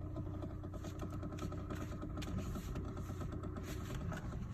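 Rapid, steady clicking and knocking that seems to come from the steering column of a 2011 Hyundai Elantra, heard over the engine idling after a cold start. It is a really loud noise whose cause the owner does not know.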